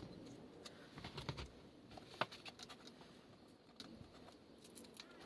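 Faint scattered clicks and rustles of hands handling wiring and tape while securing a harness lead behind the dash, with one sharper click about two seconds in.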